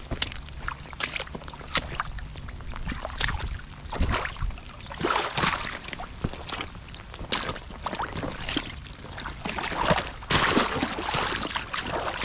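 Footsteps in rubber work boots wading through shallow creek water and mud: irregular splashing and sloshing steps, with a few sharp knocks among them.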